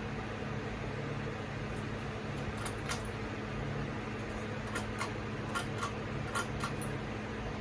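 Hampton Bay Tripoli ceiling fan running: a steady motor hum with an even whoosh of moving air, and a scattering of light clicks from about a third of the way in.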